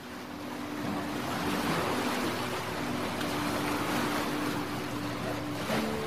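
Black Sea waves washing onto a sandy, rocky beach, fading in over the first second, with a soft, low melody of held notes underneath.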